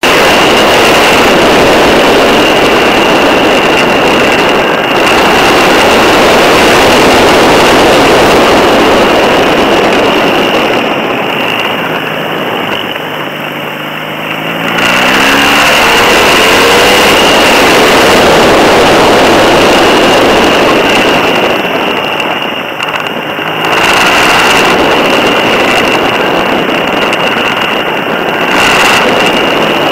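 BMW R 1200 GS Adventure's flat-twin engine under a loud rush of wind and road noise on a low-mounted camera, with a thin steady high whine above it. Twice the rush eases while the bike leans through a bend, and in the first of these the engine's note can be heard rising as it accelerates.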